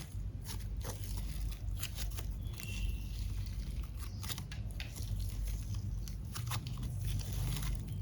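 Slime being squeezed and worked by hand, giving irregular sticky clicks and small pops over a low steady hum.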